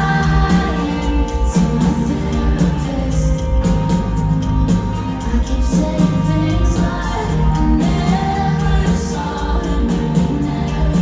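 Live pop song: a woman singing over a full band that includes electric guitar, recorded from within the concert audience.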